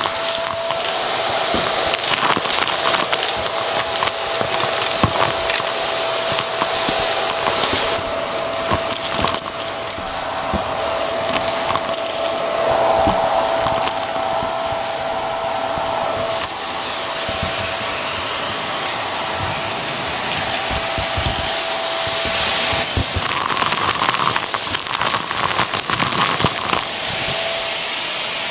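Hart stick vacuum running with a steady whine while small debris crackles and rattles up the wand as it is sucked off the carpet. The whine drops out about three-quarters of the way through, then briefly returns near the end.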